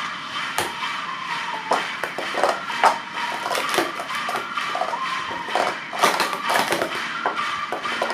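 William Orrell Pro Series 2 plastic sport-stacking cups clacking and clattering in quick, irregular strikes as they are rapidly stacked up and down on a mat, over background music.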